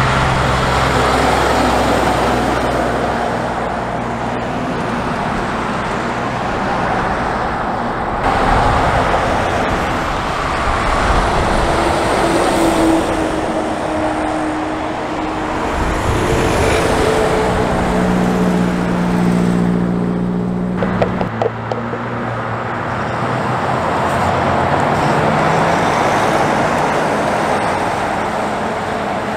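Heavy semi-trailer trucks hauling race car transporters drive past one after another, their diesel engines running under load over loud tyre and road noise. In the middle stretch the engine note steps and glides up and down.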